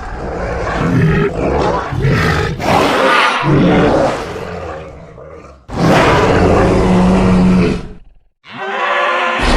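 Dubbed creature roar sound effects: a run of loud roars and growls, one after another. The longest roar comes about six seconds in and lasts about two seconds, and after a brief break another begins near the end.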